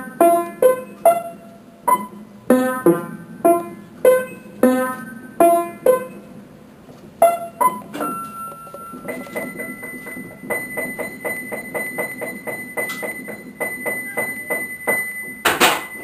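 Background keyboard music: single struck notes, about one or two a second, then from about nine seconds in a quicker run of repeated notes over a held high tone. A short loud burst of noise comes just before the end.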